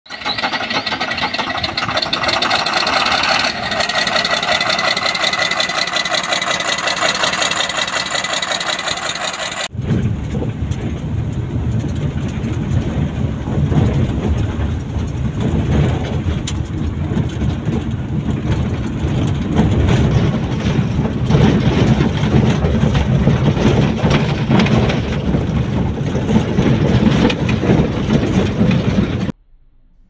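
A motor grader's diesel engine running with a steady high whine over it. After about ten seconds it cuts suddenly to the low, steady rumble of a vehicle driving on a rough dirt road, heard from inside the cab, which stops abruptly near the end.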